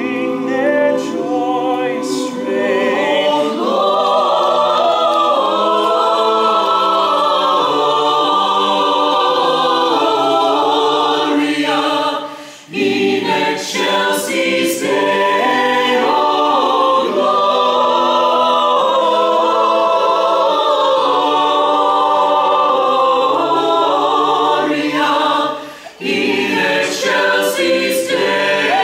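Mixed male and female a cappella choir singing a carol in harmony, with short breaks between phrases about twelve seconds in and again near the end.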